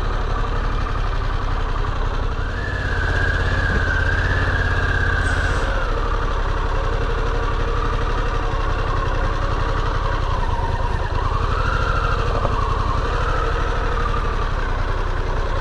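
Motorcycle engine running at road speed under wind noise, its pitch climbing a few seconds in, easing off, and climbing again later as the throttle changes.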